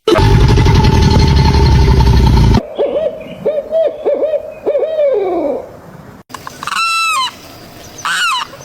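Different animal calls one after another. First a loud, harsh call for about two and a half seconds, then a string of short hoot-like calls that slide down in pitch, then two brief high cries near the end.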